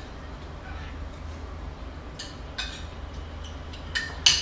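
Spoon and fork clicking and clinking against plates during a meal: a few short, separate clicks, the loudest near the end, over a low steady hum.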